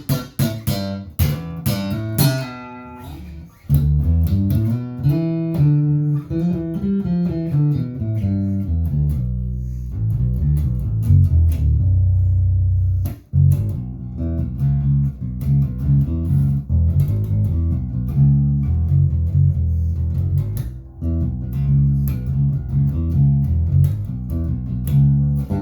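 Harley Benton JJ-55 OP electric bass played fingerstyle through a small amp, blend favouring the neck pickup with the tone controls centred. A run of bright plucked notes opens into a riff, then comes a long held low note, a short stop a little past halfway, and the riff again.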